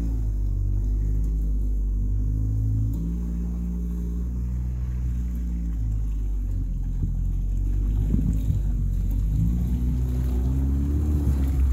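All-terrain vehicle engine running as the machine crawls on its big low-pressure tyres through bog mud, a steady low drone whose pitch rises and falls as the revs change.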